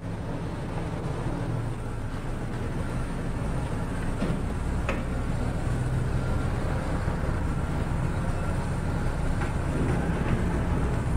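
Car engine running low and steady as the car edges forward, with a few faint clicks along the way.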